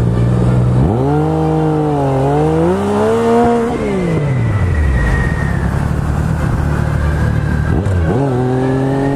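Motorcycle engine idling, then pulling away: the revs climb sharply, dip at a gear change and climb again, then fall away slowly as the throttle eases off. It runs steadily for a few seconds, then about eight seconds in the revs drop and climb again through another shift.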